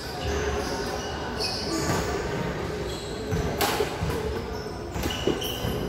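Doubles badminton rally in a large indoor hall: a few sharp racket strikes on the shuttlecock and players' footwork on the court, over a steady hubbub from the hall.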